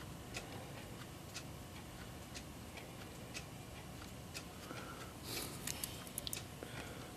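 A clock ticking faintly and evenly, about once a second. Near the end come a few quicker clicks and a brief rustle as the clock movement is handled.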